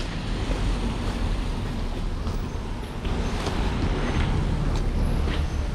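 Steady street traffic noise from passing cars, with wind rumbling on the microphone.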